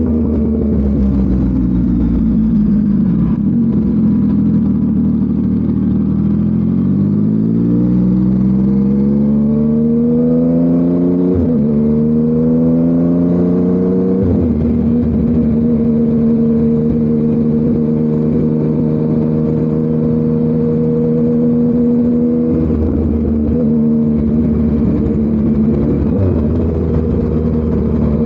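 Yamaha MT-09 crossplane three-cylinder engine through an SC Project CRT exhaust, on the move: it revs up about 6 seconds in, shifts up near 11 seconds, pulls again, then holds a steady cruise from about 14 seconds on.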